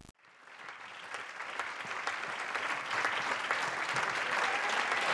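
A dense crackling hiss from a film trailer's soundtrack, fading in after a sudden cut and swelling steadily louder.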